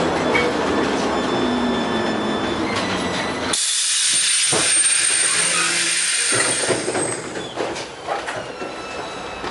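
LM-68M tram running, with rolling noise on the rails. About three and a half seconds in, a loud air hiss with a thin high whistle starts and lasts about three seconds, then the running noise dies down.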